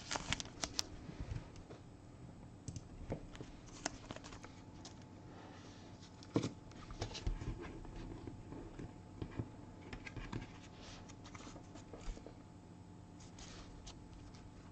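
Faint rustling and light clicks of trading cards being handled and slid against one another, in scattered short bursts.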